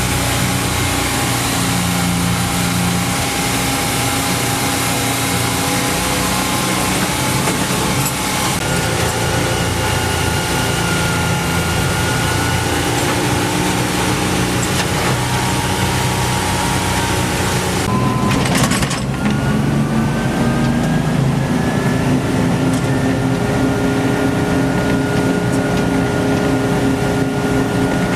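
A 1950s vintage truck's engine running as the truck drives, over steady road and wind noise. There is a brief break about two-thirds of the way through, after which the engine pitch climbs slowly.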